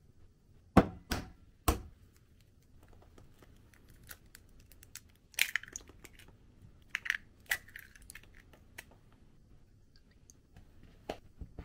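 Three sharp knocks of a spoon against a frying pan and plate as rice is scraped out and dished up. These are followed by scattered clicks, taps and short cracks as eggs are cracked into a ceramic bowl.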